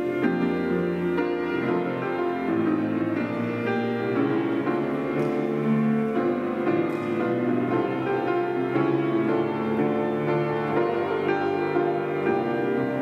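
Instrumental keyboard music playing, with held chords that change every second or so.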